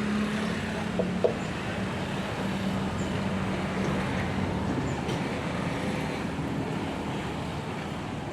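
A motor's steady low hum, fading gradually, over an even rushing noise, with a sharp click about a second in.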